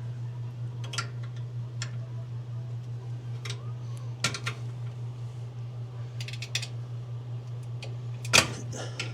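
Metal tools clicking and knocking against the dryer's frame while its drive belt is levered tighter with a screwdriver. There are scattered clicks, and one sharp knock about eight seconds in is the loudest. A steady low hum runs underneath.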